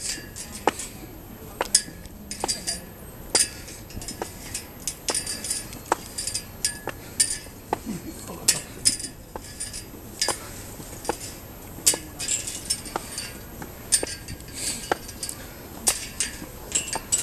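Footsteps climbing stone steps: hard-soled shoes tapping on the stone about once a second, with brief bright high-pitched clinking between the taps.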